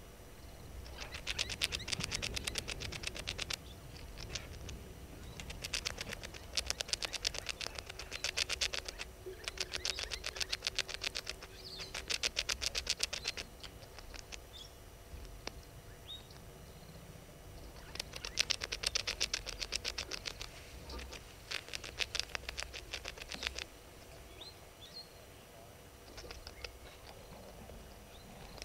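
Rapid, high-pitched rattling trills from an animal, repeated in about six bouts of roughly two seconds each, with faint scattered ticks in between.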